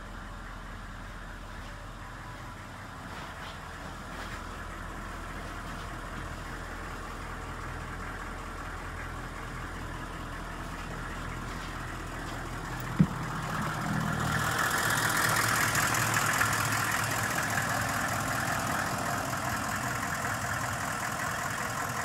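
Chevrolet Express 3500 bus engine idling steadily, with a single sharp knock about 13 seconds in. From about 14 seconds a louder rushing noise joins the idle.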